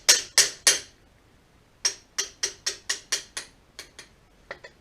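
Hammer striking metal in quick, sharp blows, about four a second, driving a retaining pin out of the Cub Cadet 1200's driveshaft. Three blows come first, then a pause of about a second, then a run of about seven, with a few lighter taps near the end.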